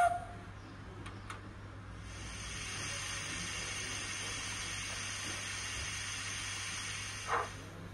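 DCC sound decoder in a Bachmann Baldwin 009 model steam locomotive, playing sounds recorded from the Ffestiniog Railway's Prince through the model's small speaker: a short toot at the very start, then about two seconds in a steady hiss of escaping steam lasting about five seconds, and a brief knock near the end.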